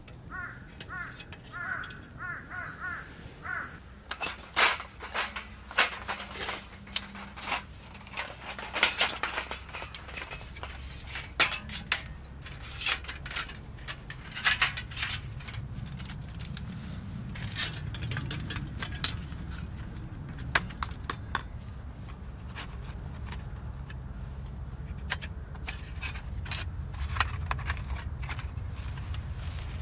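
Thin metal fire-pit plates clinking and knocking against each other as they are picked up, stacked and packed away, a run of sharp clinks that thins out after the middle. A low steady rumble underneath grows louder in the second half.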